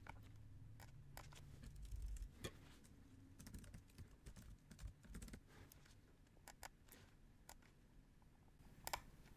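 Faint computer keyboard taps and mouse clicks, scattered and irregular.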